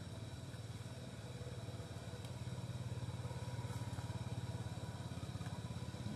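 A small engine running steadily with a fast, even pulse, swelling a little in the middle.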